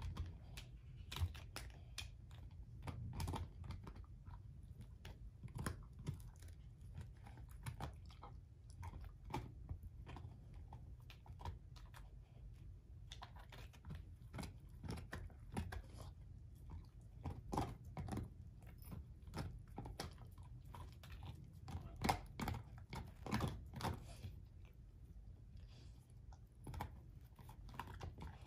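German shorthaired pointer chewing and gnawing on an air-dried whole pig foot with the hair on: irregular crunching and cracking of dried skin and bone, with a cluster of louder crunches about three-quarters of the way through.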